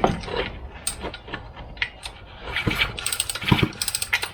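Shindaiwa 488 chainsaw's recoil starter cord pulled, turning the engine over with clicking and rattling. It is a spark test after the ignition coil was replaced.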